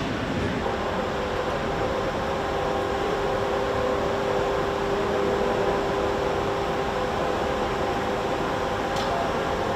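Steady hum of factory machinery: an even hiss carrying several steady tones, with a single short click near the end.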